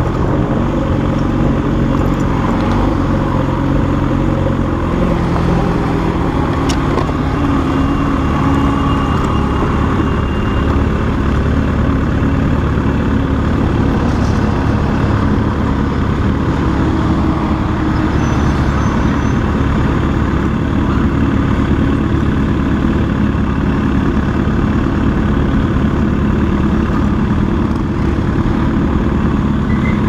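Motorcycle engine running at low speed as the bike rolls slowly, its pitch dropping a few seconds in and then holding steady.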